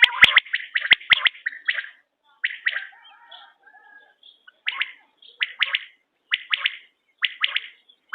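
Quail calling. The first two seconds hold a dense, rapid rattle of notes with sharp clicks. After that come short clusters of two or three quick notes, repeated about once a second.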